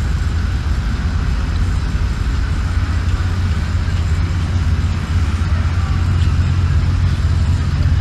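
Steady city street noise: a loud, even low rumble of traffic with a hiss above it.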